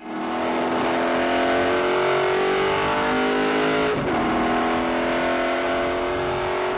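Shelby Cobra's 4.7-litre Ford V8 accelerating hard: the engine note climbs steadily, dips briefly about four seconds in as it shifts up a gear, then climbs again.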